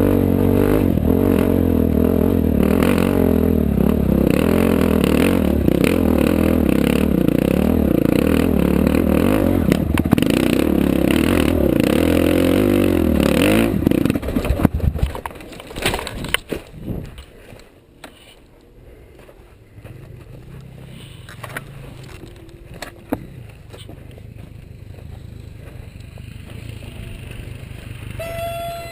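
Off-road vehicle engine running hard, its pitch wavering as it works over rough ground, then dropping off sharply about halfway through with a few knocks and rattles. After that only a much quieter low rumble remains.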